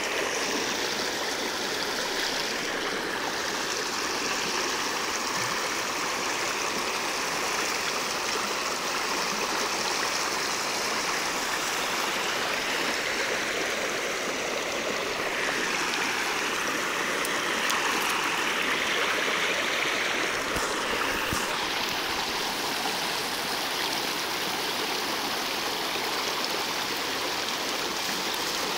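A small river's current flowing steadily, a continuous rushing and rippling of water.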